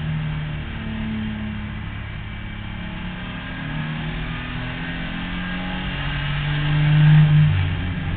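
Zilhouette race car's 2.5-litre BMW engine heard from inside the cockpit, its pitch rising and falling with the revs as it is driven hard. It is loudest about seven seconds in.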